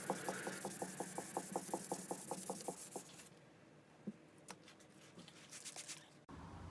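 Rapid rhythmic rubbing strokes, about seven a second, that stop about three seconds in; after them come only a few faint ticks and clicks.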